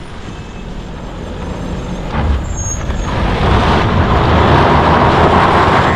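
Road traffic noise: a broad rushing hiss that grows louder over about three seconds, then holds.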